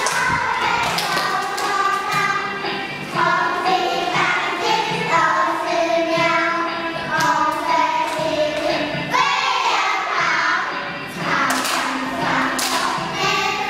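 Children singing together over musical accompaniment, with sharp percussive thumps and taps at irregular moments.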